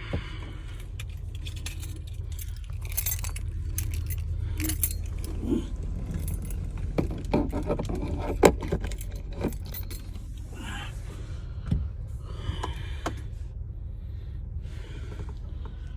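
Bunch of vehicle keys jangling and clicking as they are handled, with scattered small clicks and knocks over a steady low hum.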